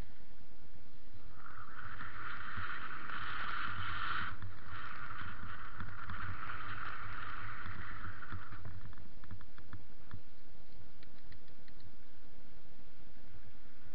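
Mountain bike riding down a dirt trail, heard from a camera on board: a steady low rumble and rattle from the ride over the ground. A loud high rushing hiss comes in about a second in and fades out just past the middle.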